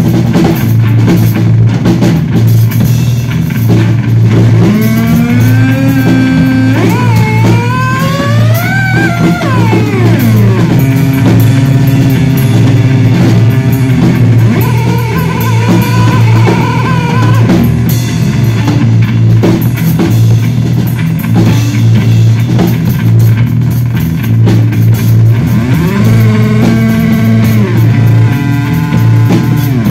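Loud live electric bass played through effects pedals over a drum kit: a repeating low bass figure pulses throughout. Effect tones glide up and down in pitch over it from about four seconds in, ease off after ten seconds, and return near the end.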